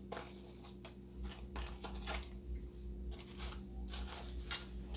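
Chopsticks picking crisp fried soft-shell crabs off a paper-towel-lined tray and setting them on a platter: faint, scattered rustles, crinkles and light clicks over a steady low hum.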